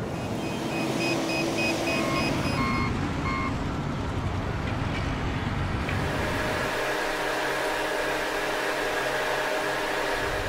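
Heavy multi-axle transporter carrying an aircraft fuselage section, moving with its engine running and a warning beeper giving short, rapid beeps, about three a second, for the first three seconds or so. About six seconds in, the sound changes to a steady machine hum with a few held tones.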